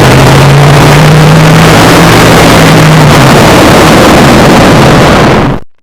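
Very loud, harsh noise filling every pitch, with a steady low hum underneath for about the first three seconds; it cuts off abruptly just before the end.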